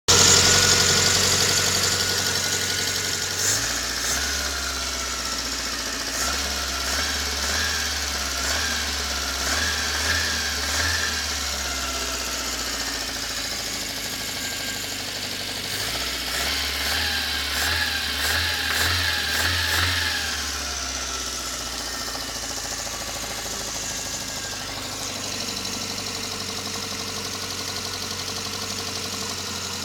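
VAZ-21083 four-cylinder petrol engine idling, revved in two spells of repeated throttle blips before settling back to idle. It has a knock from somewhere in the cylinder head that the owner cannot identify.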